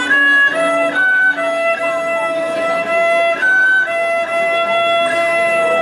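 Thai bowed fiddle playing a slow melody of long held notes, changing pitch every second or so.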